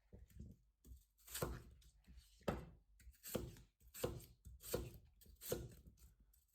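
Kitchen knife roll-cutting a peeled potato into chunks on a chopping board. The knife strikes the board faintly, about once every three-quarters of a second.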